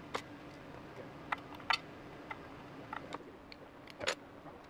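Light handling clicks and taps, about six scattered short ones, from parts being handled on a workbench, over a faint steady room hum.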